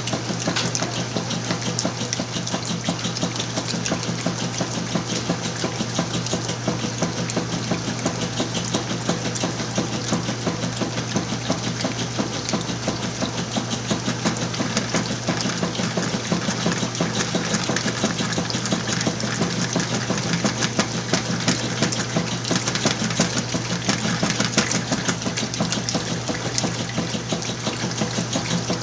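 Whirlpool washing machine in its wash cycle with a full load of clothes: a steady motor hum under dense, rapid clicking and churning water.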